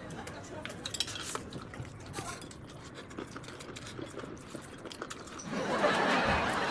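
Quiet eating sounds: small clicks and chewing. About five and a half seconds in, a louder steady noise begins.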